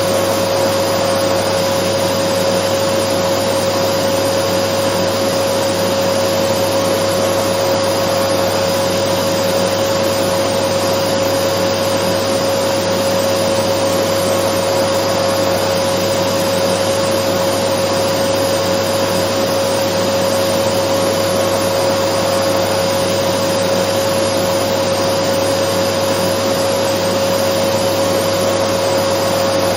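Dyson vacuum cleaner running continuously: a steady rush of air with one unchanging whine held at a single pitch, no change in level.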